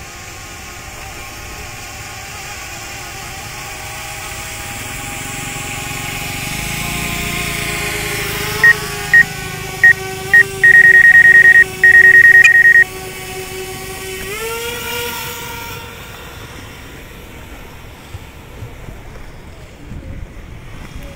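DJI Mavic Air quadcopter's propellers whining steadily and getting louder, the pitch dropping about eight seconds in and rising again near fourteen seconds before fading away. From about nine to thirteen seconds, loud high electronic beeps sound, a few spaced ones and then a rapid, almost unbroken run.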